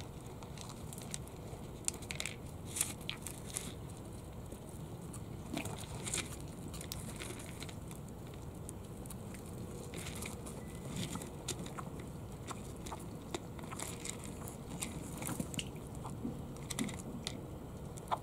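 Japanese pond turtles biting and crunching food pellets: irregular small clicks and crunches, some louder than others, over a steady low background hum.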